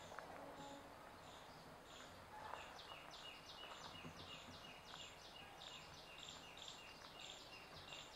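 Faint outdoor ambience with a high chirping call repeated evenly, about three notes a second, growing clearer about three seconds in.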